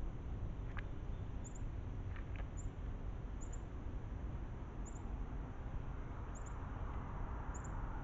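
Outdoor ambience with a steady low rumble, over which faint, very high-pitched short double chirps repeat about once a second, with a few sharp clicks in the first few seconds.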